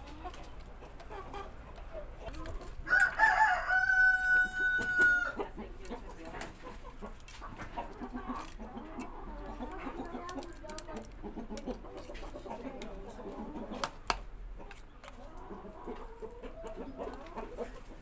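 A rooster crows once, a few seconds in, ending on a long held note; it is the loudest sound. Around it come scattered sharp clicks and scraping as a screwdriver digs sludge out of a plastic washing-machine drain pump housing.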